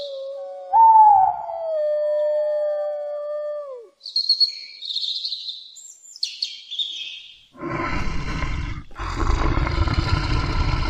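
Canine howling: several long, slowly falling howls overlapping, the loudest starting about a second in. High chirps follow, and a rushing noise fills the last three seconds.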